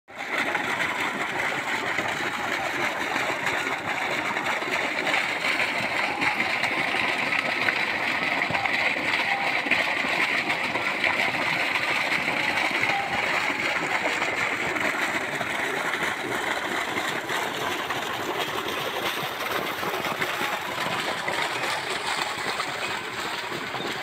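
Steady noise of an irrigation water pump running, with water gushing out of its outlet pipe into a field channel.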